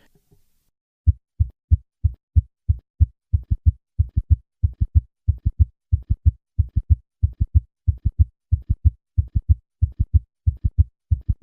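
Auscultated heart sounds in a fast triple rhythm, a summation gallop: at a fast heart rate the third and fourth heart sounds fuse into one loud diastolic sound between beats. The short, low thuds start about a second in and follow each other quickly, about three to four a second.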